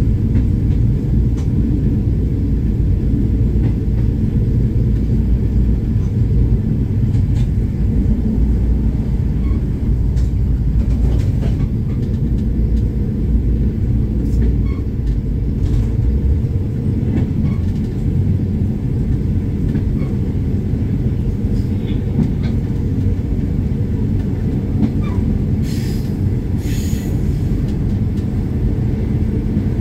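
Train running along the track, heard from inside the driver's cab: a steady low rumble of engine and running gear, with occasional faint clicks from the wheels.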